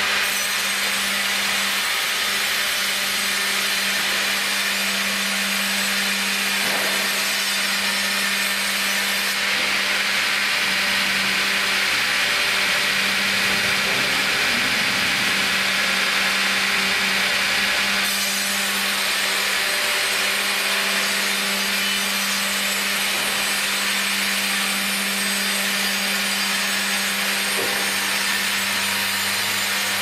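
Vertical band saw running and sawing lengthwise through a log fed on a hydraulic carriage: a steady sawing noise over a constant motor hum.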